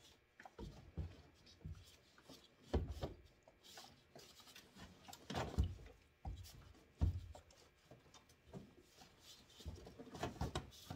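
Hands working a rubber hose back onto a plastic coolant reservoir fitting: irregular rubbing and scraping of rubber and plastic, with a few dull knocks.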